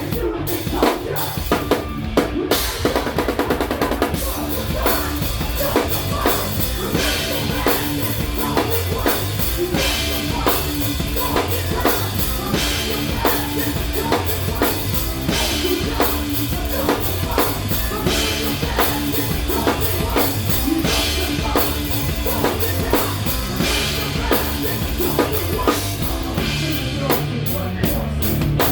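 Live rock band playing a loud, drum-driven heavy passage, with a steady kick and snare under a repeating guitar and bass riff.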